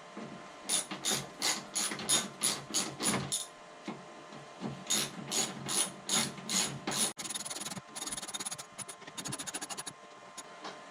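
Socket ratchet clicking while tightening 10 mm bolts: groups of separate clicks about three a second, then faster runs of rapid clicks after the middle.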